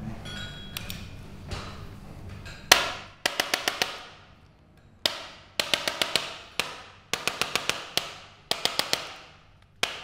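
Handheld chiropractic adjusting instrument firing against the back of the shoulder: a sharp click followed by a quick run of about six clicks, repeated four times, each with a ringing tail that dies away.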